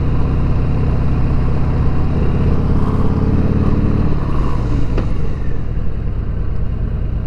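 2020 Harley-Davidson Sport Glide's V-twin engine running under way, with road and wind noise on the helmet microphone; the engine note is strong for the first four seconds, then eases off as the throttle is closed. A sharp click comes about five seconds in.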